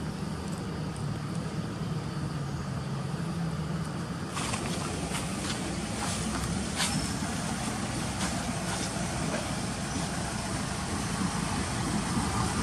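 Steady low hum of a road vehicle's engine under outdoor background noise. About four seconds in, the sound changes abruptly to a brighter hiss with scattered light clicks.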